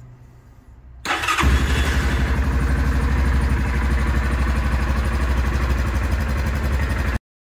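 Yamaha Kodiak ATV's single-cylinder four-stroke engine cranking briefly on the electric starter about a second in, catching at once and then idling steadily with an even beat, until it cuts off abruptly near the end.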